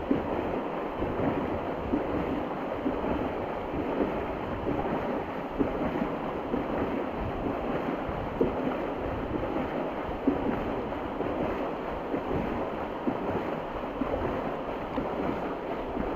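Pool water splashing and churning from a swimmer sprinting butterfly, a steady wash of water noise with a sharper splash now and then.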